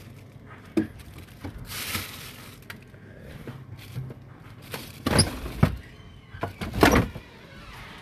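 Plastic freezer drawer of a Hotpoint fridge freezer being slid and handled, with frozen food in plastic bags rustling and scattered knocks, and two louder bangs in the second half.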